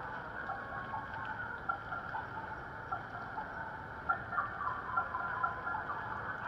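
Busy city-crossing street ambience: a steady low background hum with many short, irregular chirps.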